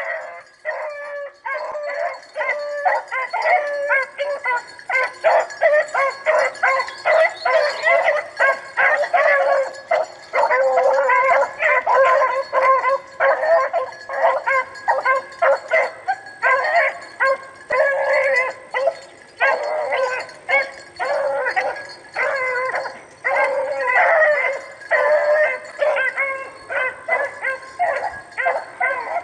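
Rabbit hounds baying continuously as they run a rabbit's trail. Several dogs give overlapping, repeated howling calls with hardly a break.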